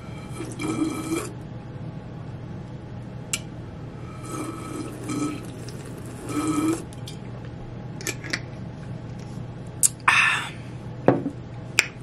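Apple juice being drunk from a glass bottle: gulping and swallowing in three short bouts, with small mouth clicks between them. Near the end comes a loud breath out.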